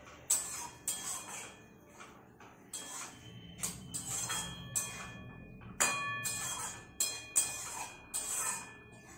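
A metal spatula scraping and knocking against a steel wok while stirring: about a dozen sharp, irregular strikes, some followed by the pan ringing briefly.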